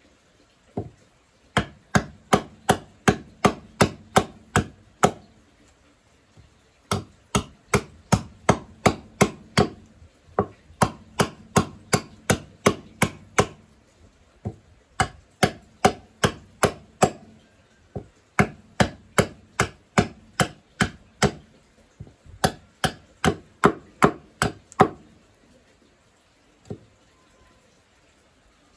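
Hatchet chopping into a green-wood cup blank: sharp wooden blows about three a second, in runs of several seconds with short pauses, stopping near the end.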